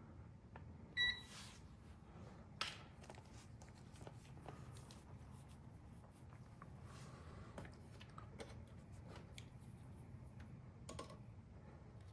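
Digital multimeter giving one short, high beep as it is switched on, followed by a sharp click and a few faint handling clicks as the meter and probes are readied.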